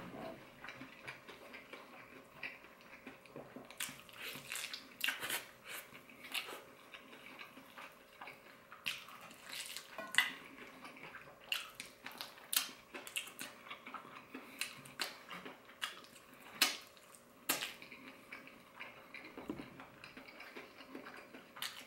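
Close-up eating sounds of a person chewing and biting into sauce-glazed, extra-crispy fried chicken: short mouth clicks and crunches at irregular intervals.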